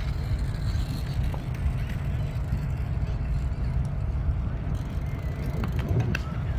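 Low, steady rumble of a twin-engine regional jet's turbofans at takeoff power as it lifts off and climbs away.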